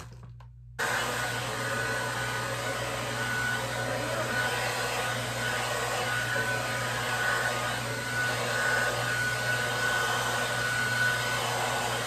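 Revlon hair dryer fitted with a diffuser attachment switched on about a second in, then running steadily on wet hair: an even rush of air with a thin high whine over it.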